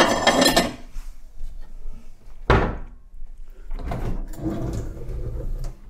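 Kitchen handling noises: a sharp clatter at the start, another knock about two and a half seconds in, then a cupboard drawer being pulled open with a rattle.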